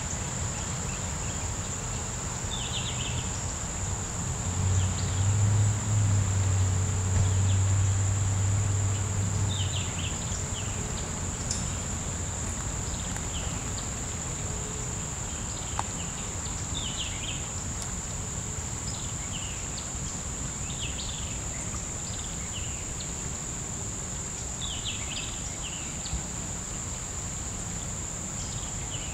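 Steady high-pitched drone of an insect chorus, with short chirps every few seconds. A low rumble swells up about four seconds in and fades out about six seconds later.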